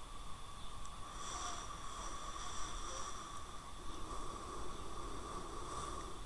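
Faint steady background hiss with a few thin, constant high whines, the recording setup's noise floor with no speech over it.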